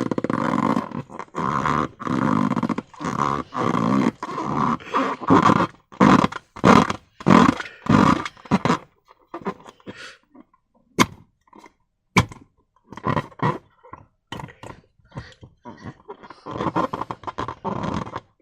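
Rubber balloons being worked with slime: rubbery squeaks and squelches in repeated short bursts. The sound thins out midway, with two sharp clicks, then the bursts pick up again near the end.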